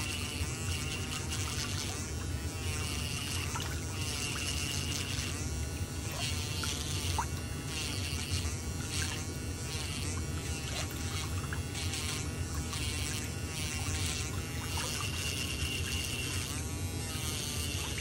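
Electric nail drill (e-file) with a small white bit running steadily while it is worked along the edge of a big toenail, clearing buildup from the nail fold. Its whir dips and rises in pitch over and over as the bit presses on and lifts off the nail, with a high whine that comes and goes.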